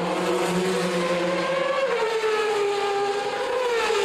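Le Mans sports-prototype race car engines running at high revs. The pitch climbs, drops sharply about two seconds in at an upshift, climbs again and falls near the end.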